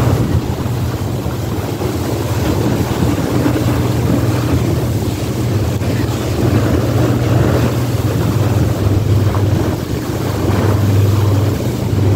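A sightseeing boat's engine running with a steady low drone, mixed with wind on the microphone and the rush of choppy water.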